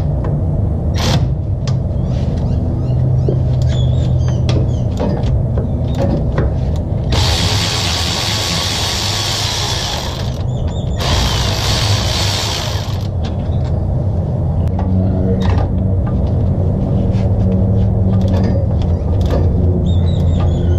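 Milwaukee cordless electric ratchet running in two spells, about three seconds and then two, around the middle, backing out the starter mounting bolts. Between and around them come scattered clicks and knocks of the tool and socket on metal, over a steady low hum.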